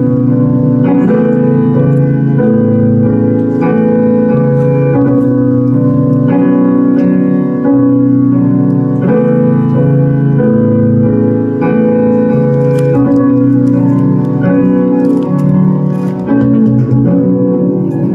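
Improvised electronic music from a small electronic instrument played live through effects pedals: sustained, organ-like chords that shift every second or so.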